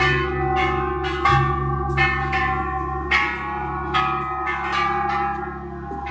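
Hanging temple bells struck again and again at uneven intervals, each strike ringing on and overlapping the next over a steady low hum.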